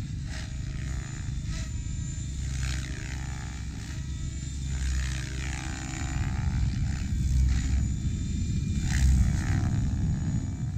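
Mikado Logo 690 electric RC helicopter flying aerobatics: the rotor blades give repeated swooshes while the whine sweeps up and down in pitch with the manoeuvres, over a heavy low rumble.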